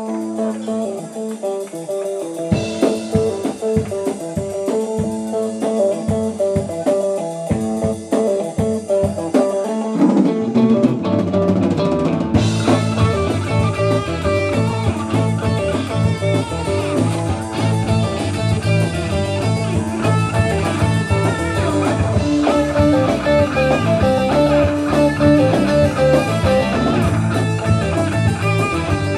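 Live rock band playing an instrumental passage: electric guitar playing alone at first, drum hits coming in about two and a half seconds in, then bass and the full drum kit with cymbals joining from about ten seconds on.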